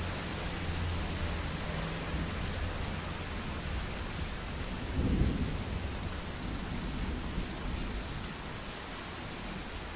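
Heavy rain falling steadily, with a low rumble of thunder under it that swells to a louder peak about halfway through and fades away near the end.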